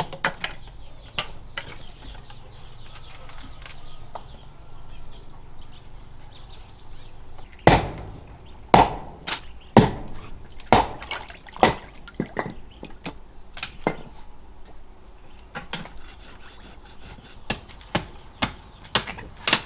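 Irregular chopping strokes on wood, with a run of heavier strokes about one a second in the middle.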